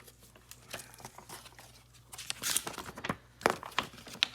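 Paper rustling and crinkling as printed pages are handled and turned, with scattered taps and clicks. It is busiest in the second half, where one sharp click stands out.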